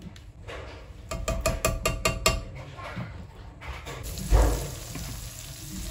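A quick run of sharp ratchet-like clicks, then frying sizzle starting in a hot non-stick wok, with a dull knock and a wooden spatula stirring.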